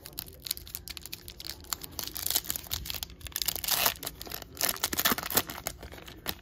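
Foil wrapper of a baseball card pack being torn open and crinkled by hand: a run of crackles and rips, loudest through the middle.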